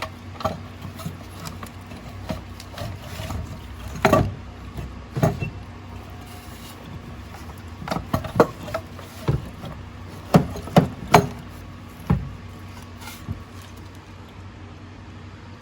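Irregular knocks and clunks of metal parts being shifted and bumped as the turbocharger is worked loose from a Ford 6.0L diesel's top end, over a steady low hum.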